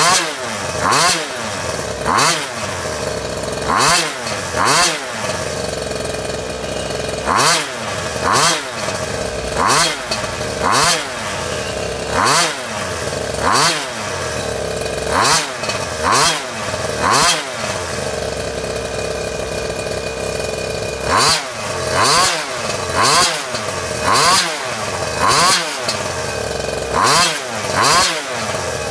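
Goped Liquimatic's 23cc Zenoah G23LH two-stroke engine with an expansion-chamber pipe, idling and revved in short sharp blips about once a second. About two-thirds of the way through there are a few seconds of plain idle before the blips resume.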